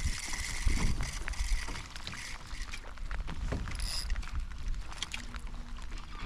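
Small waves lapping and splashing against a sit-on-top kayak's hull, with scattered short ticks and a steady low rumble of wind on the microphone.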